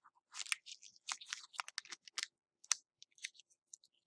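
Foil wrapper of a Pokémon card preview pack crinkling and crackling in short, irregular bursts as fingers pick and pull at it, trying to tear it open. The pack resists opening.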